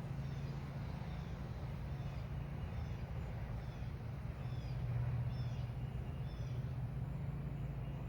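A small bird chirping repeatedly in short, faint, falling notes over a steady low rumble.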